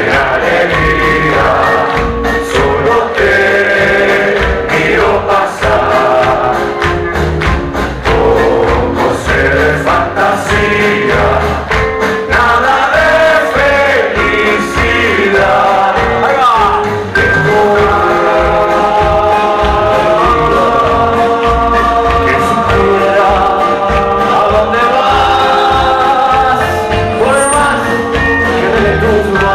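Live band playing an up-tempo song, with acoustic guitar and upright double bass under sustained notes held in harmony.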